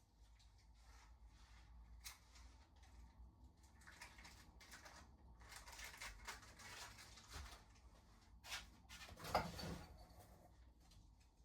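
Faint handling noises, likely from assembling an e-bike: light clicks and rustling, busier in the middle, with one sharper knock about nine seconds in.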